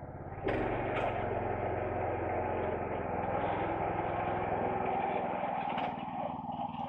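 Small engine of a tracked 'iron horse' log skidder running steadily. It cuts in abruptly and grows louder about half a second in.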